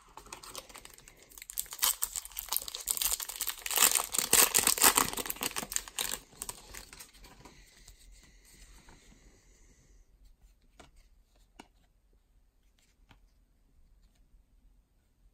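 The wrapper of a 2019 Topps Series 2 baseball card pack being torn open and crinkled. The crackling is loudest about four to five seconds in and dies away by about ten seconds, followed by a few faint clicks as the cards are handled.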